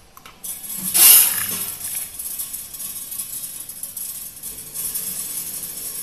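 Hard granular product pouring through the stainless steel discharge funnel of a pouch packing machine. It starts suddenly about half a second in with a loud rush near one second, then settles into a steady rattling hiss.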